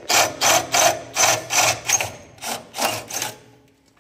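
Cordless drill working at a hole in a bracket, in a run of about ten rhythmic grinding strokes, roughly three a second, that stops a little after three seconds in.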